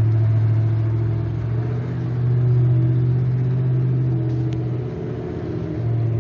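Motor vehicle engine running with a steady low drone, easing off briefly about five seconds in before coming back up.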